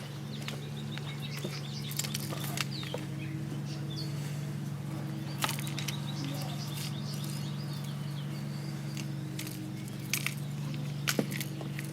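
Scattered light clicks and scrapes of a screwdriver driving the drain screw back into an outboard motor's lower gear case, over a steady low hum. Faint bird chirps come and go.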